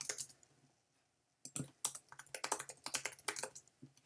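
Typing on a computer keyboard: a few key clicks, a pause of about a second, then a quick run of keystrokes.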